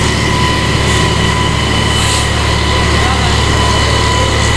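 Engine-driven water pump running steadily, pumping out floodwater: a constant low drone with a thin, steady high whine over it. Two brief hisses come about one and two seconds in.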